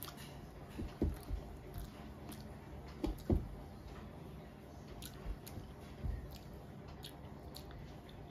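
Close-up eating sounds: chewing and wet mouth sounds, loudest about a second in and again about three seconds in, with the soft squish of fingers mixing rice on a metal plate.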